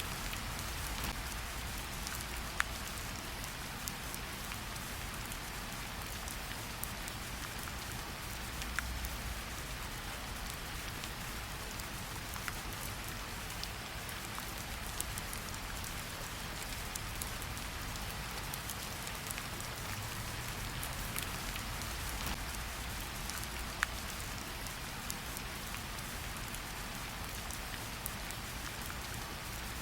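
Steady rain falling, an even hiss with scattered sharp drips and taps standing out, over a soft low rumble.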